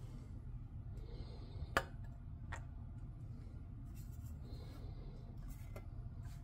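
Quiet handling sounds: a few light clicks and taps, the sharpest just under two seconds in, as a thin metal plate and a plastic-bodied ignition coil pack are fitted together by hand, over a low steady hum.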